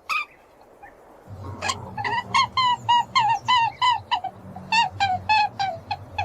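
A quick run of short, pitched, honking animal calls, about four a second, beginning about two seconds in after a near-quiet pause and a single click, over a low background rumble.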